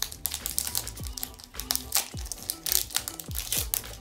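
A foil booster-pack wrapper crinkling as it is torn open by hand. Background music plays over it, with a deep beat about once a second.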